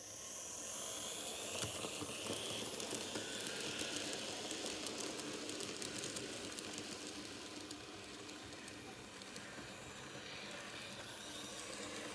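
Z scale model steam train running on its track: a steady hiss scattered with many small, quick clicks from the wheels and rail joints, easing slightly as the train moves away.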